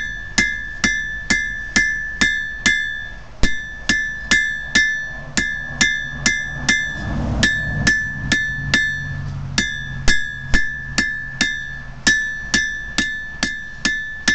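Hand hammer striking a heated steel file on a 130-pound anvil, drawing the metal out. The blows come about two to three a second in short runs with brief pauses, and each strike leaves a bright, ringing tone from the anvil.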